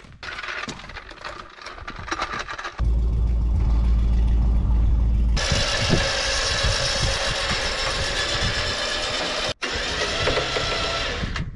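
Engine running steadily, with abrupt jumps in the sound about 3 and 5 seconds in and a brief dropout near the end.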